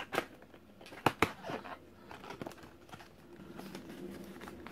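A small cardboard retail box being pried open by hand: a few sharp clicks in the first second and a half as the end flap gives, then light rustling and scraping of the cardboard.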